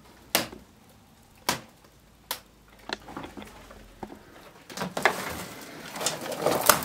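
A few single sharp knocks about a second apart, then a rising stretch of crackling and rustling: handling noise and steps among dry twigs and debris on an old floor.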